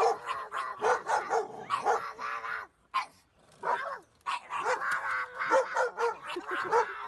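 A dog barking and yipping in quick, repeated calls, with a pause of about a second midway.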